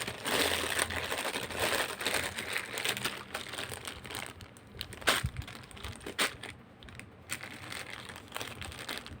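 Packaging crinkling and rustling as it is handled and opened, with a few sharp clicks.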